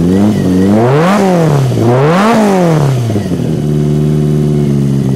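1983 Donkervoort S7's dual-overhead-cam, four-valves-per-cylinder engine, heard through its side-exit exhaust, revved twice in quick succession, each rev climbing and dropping back, then settling to a steady idle.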